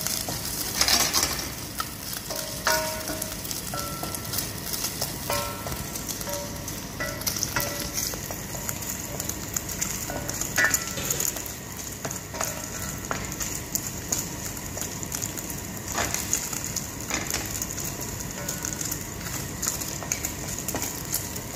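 Bacon frying in hot oil in a pan, sizzling steadily with dense crackling as its fat renders.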